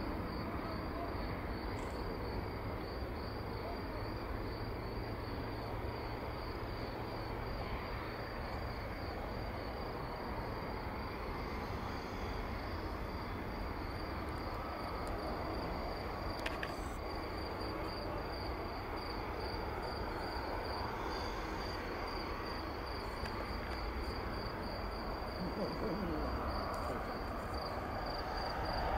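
An insect chirping in a steady, evenly pulsing high trill, over a low steady rumble from a wide-body airliner's jet engines at taxi power.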